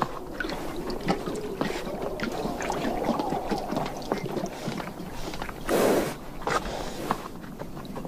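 Namib desert horses drinking at a water trough: water sloshing and slurping with many small scattered clicks, and one louder noisy burst about two-thirds of the way through.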